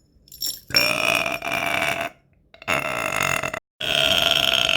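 A woman burping: three long, loud belches in quick succession, each about a second long.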